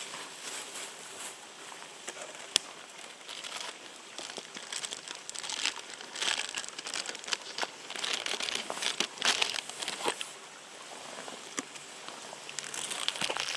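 Irregular crinkling and rustling, in uneven bursts, with a sharp click a couple of seconds in and a few more later.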